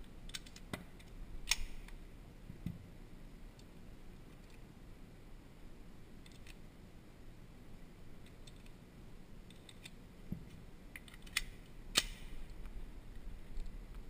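Scattered light clicks and taps of a pistol being handled on a shooting bench, with a few sharper clicks near the start and a louder pair near the end, over a faint low hum.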